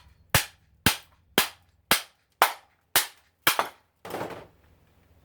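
Hammer blows on the steel part of a garbage disposal during teardown: about eight sharp, ringing strikes at roughly two a second, followed by a duller, rougher clatter.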